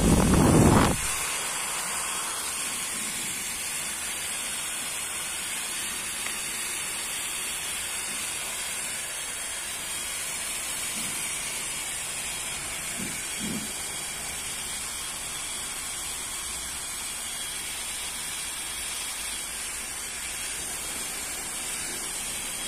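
AVC 12 V centrifugal blower fan running: its air hits the microphone for about the first second, then a steady rushing hiss of air.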